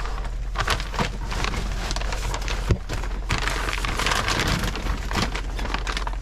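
Irregular rustling and crackling of someone crawling through a crawl space, with a steady low hum underneath.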